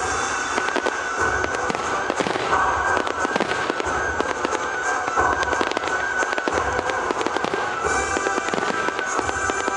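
Fireworks display: dense, rapid crackling with repeated deep thuds about every second and a half.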